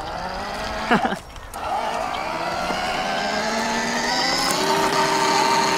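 Electric drive motors and gearbox of a 12-volt ride-on toy Ferrari whining steadily, the pitch creeping slowly upward as the car drives, with a brief voice about a second in.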